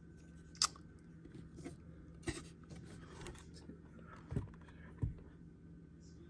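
Faint handling sounds of a cigar and its box: a few light clicks and crinkles from the cellophane-sleeved cigars, a brief rustle, and two soft knocks near the end.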